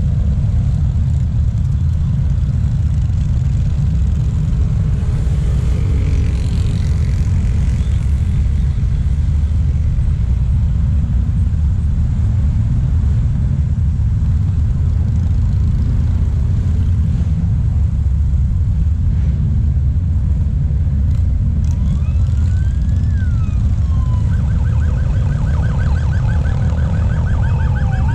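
Steady low rumble of the highway traffic and the column of motorcycles passing below. About 22 seconds in, an emergency-vehicle siren starts: a slow rising-and-falling wail, then a fast repeating yelp near the end.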